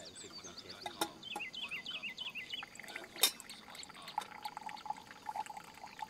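Brewed coffee pouring from the spout of a vintage flip drip coffee maker into a stainless steel tumbler, with a steady filling sound from about four seconds in. A single sharp click a little past three seconds in.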